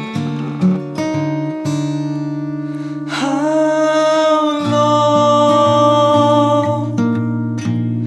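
Acoustic guitar playing the song's intro, with a long held melodic note over it from about three seconds in.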